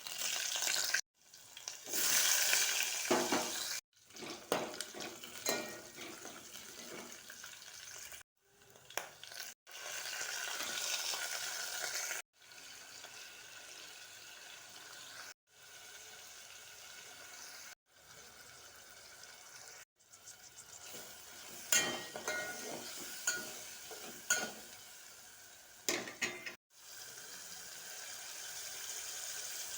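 Food frying and sizzling in a pot while a spoon stirs it, with scraping and sharp knocks of the spoon against the pan. The sizzle cuts off and starts again about every two to three seconds.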